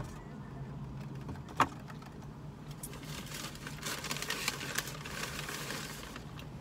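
Paper fast-food bag and wrappers rustling and crinkling as they are handled, for a few seconds from about halfway in. A single sharp click, the loudest sound, comes about a second and a half in, over a low steady hum.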